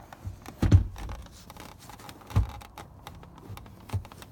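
Car seat on its welded steel track being handled and set into place: a few dull thumps and knocks with small clicks between, the loudest about a second in, others near halfway and near the end.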